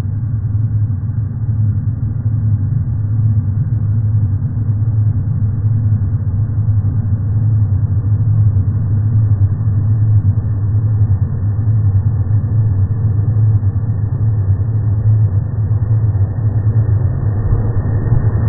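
Passenger train approaching and drawing alongside, heard slowed down, so its running becomes a deep, steady rumble with no high sounds.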